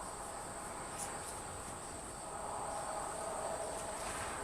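Insects trilling in a steady, continuous high chirr, with a faint low hum joining about halfway through.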